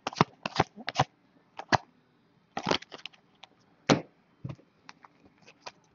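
Trading cards being handled and set down on a wooden tabletop: a string of light, irregular clicks and taps, about a dozen of them, the sharpest about three and four seconds in.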